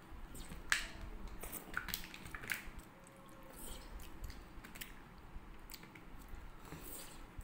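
Quiet eating sounds: scattered soft mouth smacks and clicks, about five, as rice mixed with curd is eaten by hand.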